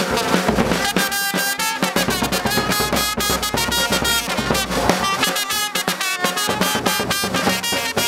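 A brass and drum band playing live: trumpets and a large low brass horn holding the melody over a quick, steady beat of hand-struck drums.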